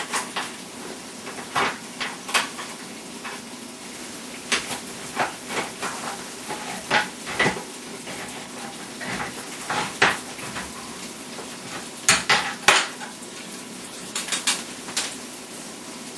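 Irregular metallic clicks and clinks, some in quick pairs, as a small can of evaporated milk is opened and handled with kitchen utensils.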